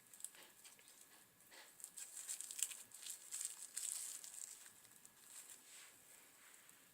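Faint crinkling and rustling of packaging being handled and unwrapped: a run of quick crackles, busiest in the middle and thinning out near the end.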